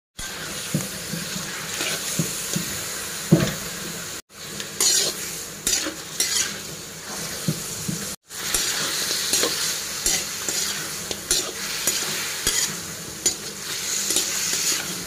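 Chicken pieces sizzling in hot oil in a metal kadai while a metal spatula stirs them, scraping and clicking against the pan. The sizzle breaks off briefly twice.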